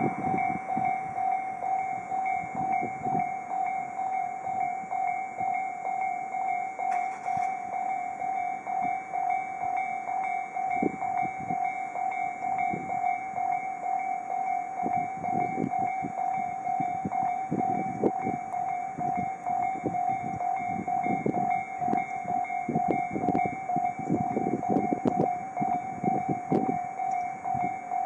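Japanese railway level-crossing warning bells ringing steadily with a repeating electronic clang. The bells at this crossing sound out of step with each other. A low rumble comes and goes underneath in the second half.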